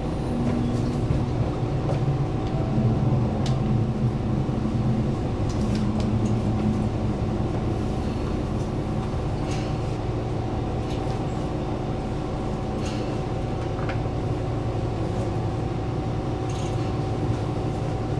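Inside a diesel railcar running slowly as it draws into a station and comes to a stop: a steady engine and running hum with a few held tones, and occasional clicks from the wheels and car body.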